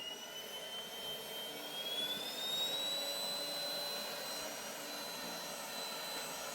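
DEVOAC N300 cordless stick vacuum running: a high motor whine that rises in pitch over the first few seconds as the motor spins up, then holds steady.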